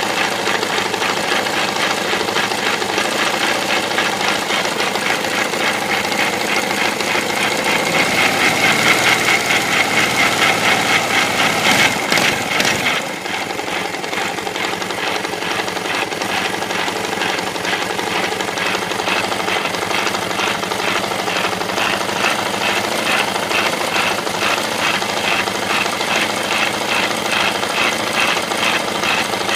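KTM 690 SM's single-cylinder engine running with a fast, evenly repeating knock, which the owner takes for a failing bearing in the bottom end. It runs a little louder for a few seconds from about eight seconds in, then settles back after a brief clatter around twelve seconds.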